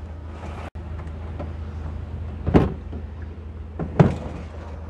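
Two plastic clunks, about two and a half and four seconds in, as the top section of a portable cassette toilet is unlatched and lifted off its waste holding tank, over a steady low hum.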